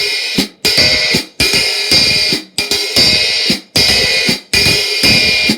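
Old-stamp K Zildjian Istanbul 14-inch hi-hat, the top cymbal a 2A, played in a series of loud strokes about one to two a second, each ringing briefly and then cut off sharply.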